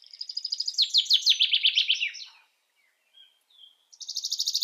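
A songbird singing: a fast, high trill of downward-sweeping notes lasting about two seconds, then a pause with a couple of faint notes, and the song starting again near the end.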